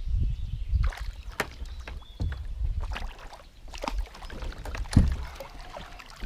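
Knocks and handling clatter on a fishing kayak, with uneven low rumbling, while a hooked channel catfish is brought in. The loudest knock, with a low thump, comes about five seconds in.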